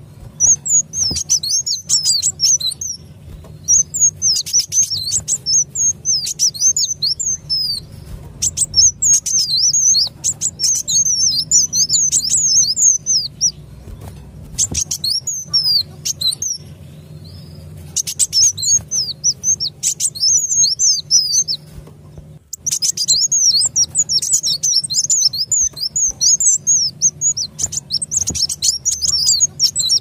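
Kolibri Wulung sunbirds in a busy lure-call recording: rapid, high chirping and twittering in runs of a few seconds, with short breaks between them. This is the agitated 'ribut' calling used to draw wild sunbirds in.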